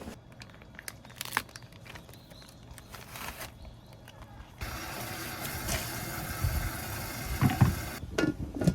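Rain on a tent in strong wind: scattered drops tapping irregularly, then from about halfway a steady hiss of rain and wind that cuts off abruptly near the end.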